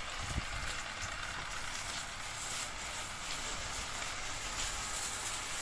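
Pressurised water jet from a pump-fed hose spraying onto a tractor tyre, a steady hiss, with the washing pump running underneath.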